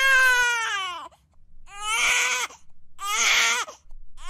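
Crying sound for an animated character: a run of wailing sobs, each falling in pitch, about one a second.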